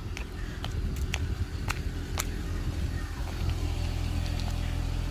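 Car engine idling steadily, getting louder about three seconds in as it is approached on foot, with light scattered clicks of footsteps.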